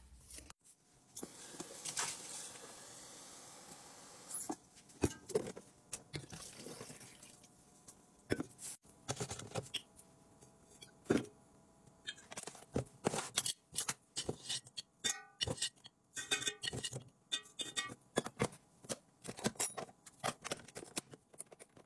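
Kitchen counter sounds of making coffee and packing a lunch: a steady hiss for a few seconds near the start, then a long string of clicks, taps and clinks as cups, lids, containers and utensils are handled.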